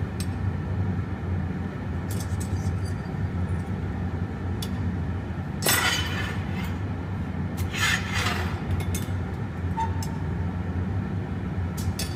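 Steady low roar of the glassworks furnace burners, with two short, sharp clinks of glass and metal from the glassblowing iron about six and eight seconds in.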